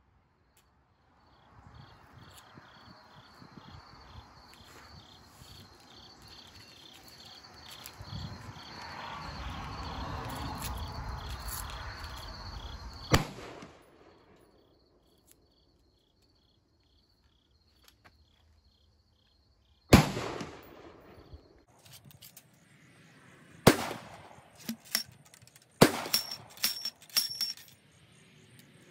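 Loading an Austrian M1849 Kammerbuchse muzzle-loading rifle: a sharp knock about two thirds of the way in, then a run of clanks and rattles as the steel ramrod works in the barrel near the end. Insects chirp steadily through the first part, under a rush of noise that swells and stops about halfway.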